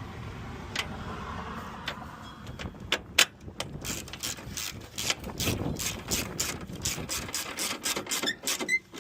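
Hand-tool work on the car's front end: after a low rustling, a quick run of sharp clicks begins about three seconds in, at about four or five a second.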